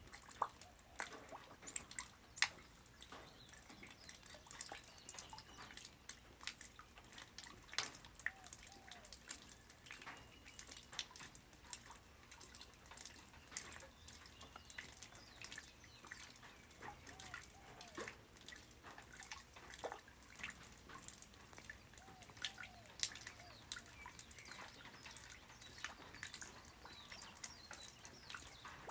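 Light rain falling on the ground, with individual drops landing in quick, irregular plinks and taps over a faint steady patter. A few short chirping calls rise out of it now and then.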